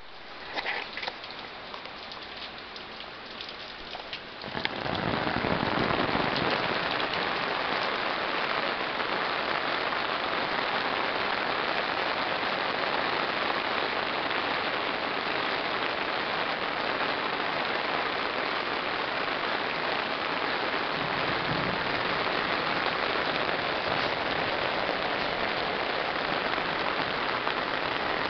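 Heavy rain pouring down in a steady downpour: lighter and patchier for the first few seconds, then a louder, even hiss from about four and a half seconds in.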